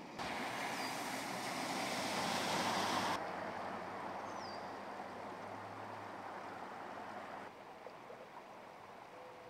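Floodwater rushing and churning across a road, a steady wash of water noise that jumps in level at a couple of cuts and is loudest in the first three seconds. A couple of faint chirps sound above it.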